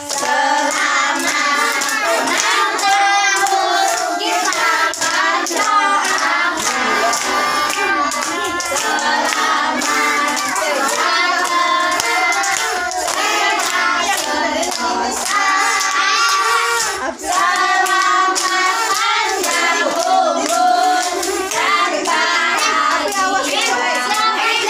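A group of women and young children singing a birthday song together while clapping their hands along.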